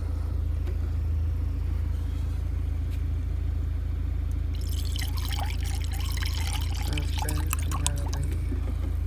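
Coolant being poured from a plastic jug into a radiator filler neck, splashing and trickling from about four and a half seconds in until near the end, over a steady low hum.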